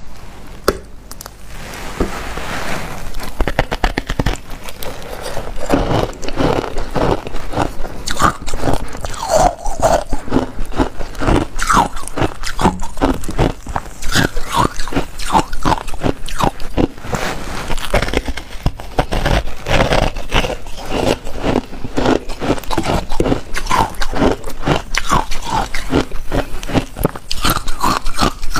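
Close-miked biting and crunching of a block of white ice: dense, crisp crunches and cracks, several a second, with chewing of the broken pieces. The crunching starts about two seconds in, after a quieter handling of the ice.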